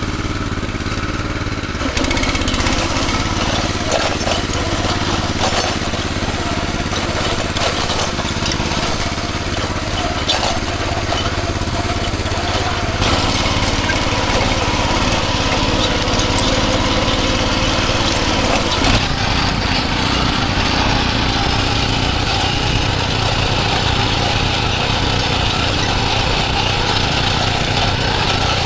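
Engine of a motorized tilling machine running steadily as the soil is worked, with scattered knocks and clatter in the first half. The sound changes character about thirteen seconds in.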